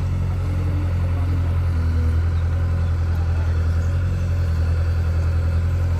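Heavy diesel engine running steadily with a low, even drone.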